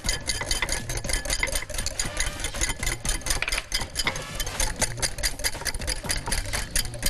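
Wire whisk beating egg yolks in a glass bowl, the wires clicking against the glass in a fast, even rhythm of roughly six strokes a second, as clarified butter is whisked in to emulsify a hollandaise sauce.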